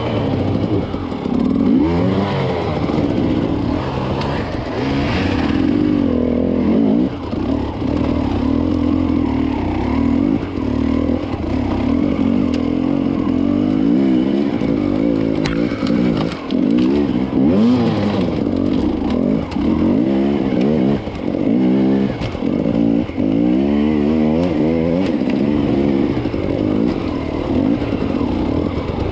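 Enduro dirt bike engine revving up and down over and over as it is worked at low speed through rough, rocky ground, with a few clattering knocks in between.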